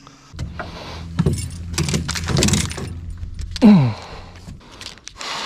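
Metal fishing tackle clinking and rattling as rods and gear are handled in a small boat, over a low steady hum from an electric trolling motor. A brief low vocal sound falling in pitch comes a little past halfway.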